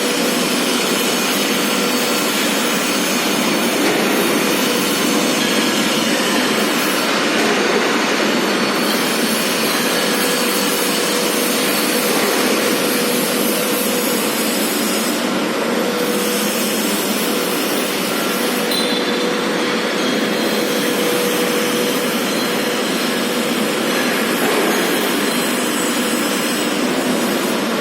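Steady, loud industrial machinery noise, an even rushing sound with a faint hum that comes and goes.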